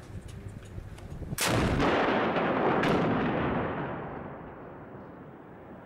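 Shoulder-fired anti-tank rocket launcher firing: one sharp blast, then a loud rushing noise that slowly dies away over about three seconds. A second sharp crack comes about a second and a half after the blast.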